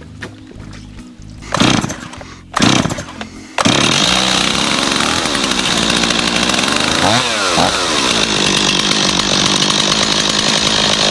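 Two-stroke chainsaw pull-started: two loud pulls on the starter cord, then the engine catches and runs steadily, revved up and back down once about halfway through. It now starts and runs on a freshly fitted spark plug that replaced a fouled one.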